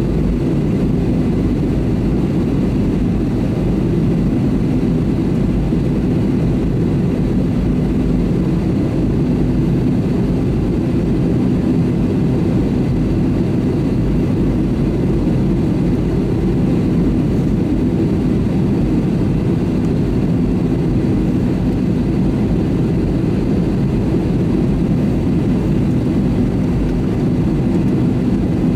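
Airbus A320neo's jet engines running steadily: an even low rumble with a faint steady hum, unchanging throughout.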